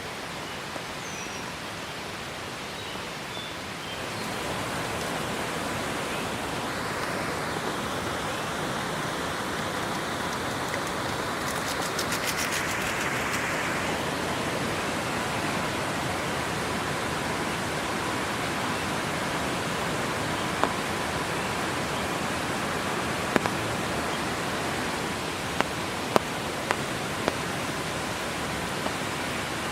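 Steady rain falling, an even hiss that gets louder about four seconds in, with a few sharp taps in the second half.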